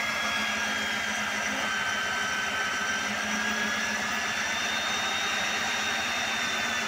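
Rig-mounted electric diamond core drill running steadily as its water-fed core bit cuts into reinforced concrete, a constant motor whine whose high pitch wavers slightly.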